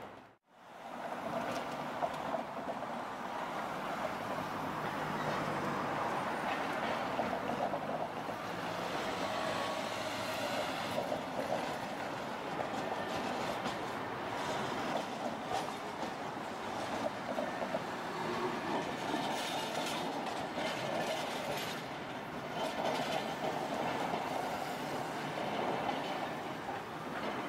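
A Tosaden streetcar running along the rails through a road intersection, mixed with cars and vans driving past.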